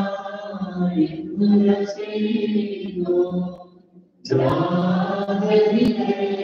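Voices chanting a liturgical hymn together on a steady reciting note, the Indian Orthodox way. The chant breaks off briefly just before the middle, then starts again.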